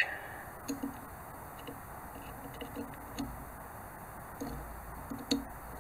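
Faint clicks and light knocks of a flat metal bar being handled against the steel clamp plate of a photo-etch bending tool, with a sharper click about five seconds in.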